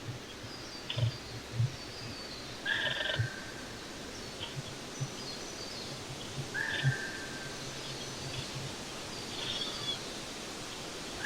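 Songbirds calling outdoors: a short call repeats about every four seconds over fainter high chirps, with a few soft low thumps and a steady background hiss.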